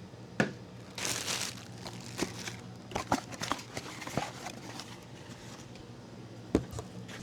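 Packaging rustling and crinkling while small accessories are handled, with scattered sharp clicks and taps, the loudest near the start and near the end.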